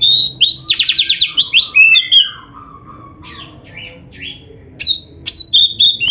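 Oriental magpie-robin (kacer) singing a loud, varied song packed with mimicked phrases: clear whistles, a fast trill about a second in, and harsh squawky slurred notes, with a quieter stretch in the middle before more loud whistled notes near the end.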